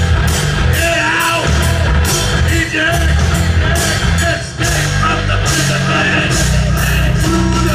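Live rock band playing loudly: a singer over guitar, bass and drums, with heavy bass and steady cymbal hits.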